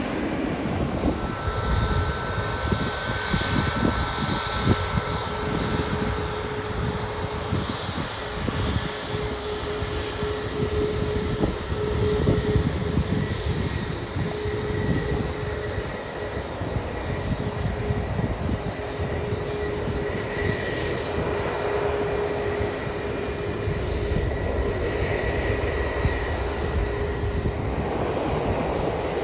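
Jet airliner turbofan engines running at low taxi power, first on a Boeing 777 and then on a Boeing 737 MAX, a steady hum with a clear tone through it and a higher tone joining about halfway, over an uneven low rumble.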